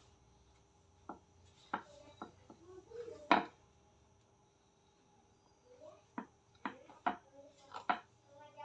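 Dough being cut into portions on a wooden rolling board: a series of sharp knocks of the blade striking the board, the loudest about a third of the way in.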